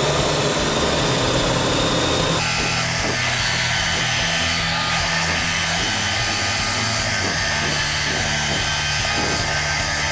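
Wet vacuum (suction machine) running steadily, sucking dirty water out of a clogged drain line. The noise turns harsher and hissier about two and a half seconds in.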